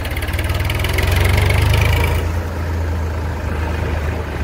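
Massey Ferguson tractor's diesel engine running while the tractor drives along, with a steady low exhaust beat. It is louder for about the first two seconds, then eases off a little.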